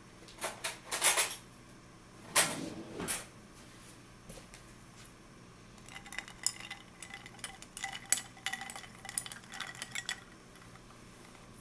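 A few sharp clinks and knocks, then a small metal spoon stirring ice cubes in a glass of water: quick rapid clinks of metal against glass and ice, with the glass ringing briefly at each strike.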